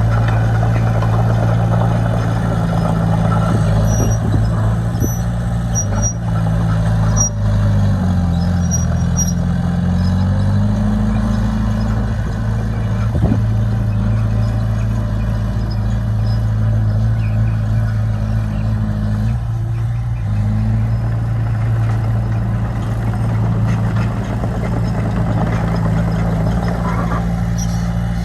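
Heavy diesel engine of earthmoving machinery running steadily under load. Its pitch drops for a couple of seconds about eight seconds in, then rises again, with a few faint high squeaks over it.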